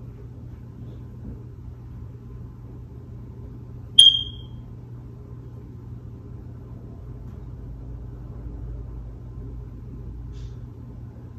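Steady low hum of room tone, with one short, loud, high-pitched electronic beep or chirp about four seconds in.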